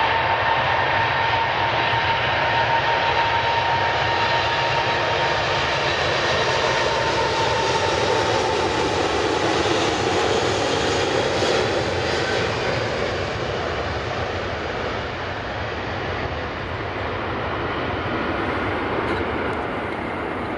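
Airbus A380's four turbofan engines as the jet rolls past: a high whine that slowly slides down in pitch, then a broad rush of engine noise that swells as it goes by and eases a little as it moves away.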